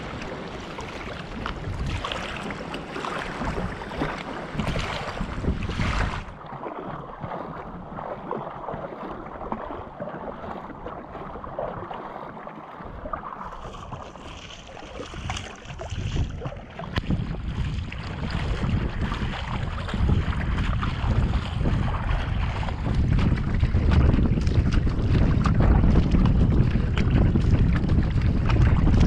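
Wind buffeting the microphone over water splashing and lapping against a kayak hull as it is paddled across choppy water. The sound changes abruptly about six seconds in, and the low wind rumble grows louder through the second half.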